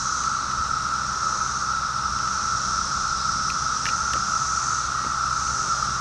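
Brood X periodical cicadas in full chorus: a loud, steady drone with a higher hiss over it.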